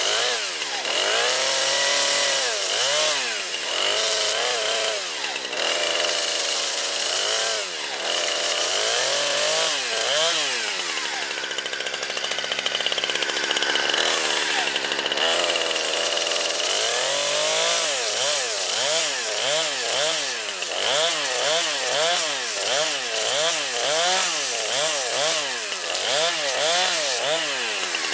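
Chainsaw revving up and down over and over while cutting into a Samsung Galaxy S4 smartphone, with a harsh grinding hiss over the engine. In the second half it revs about once a second.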